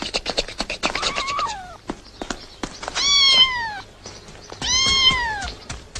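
Kitten meowing: a faint call about a second in, then two louder high meows, each rising briefly and falling away in pitch, over a scatter of clicks at the start.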